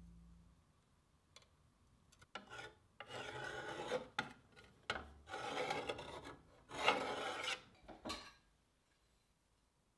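Steel divider points scribing arcs into a painted steel sheet: several raspy scratching strokes, the longest about a second each, with shorter scrapes between.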